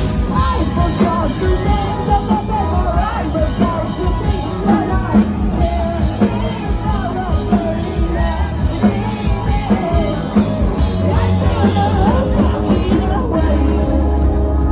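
Live rock band playing at full volume: distorted electric guitars, bass and drums, with a lead vocalist singing in a high voice over the top. The sound is a loud concert recording made from among the audience.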